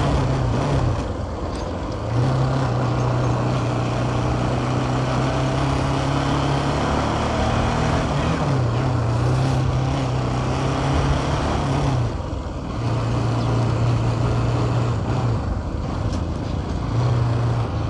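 Motorcycle engine running under way with a steady low note that drops and picks up again several times as the throttle is eased and reopened. Wind and road rush on the microphone run underneath.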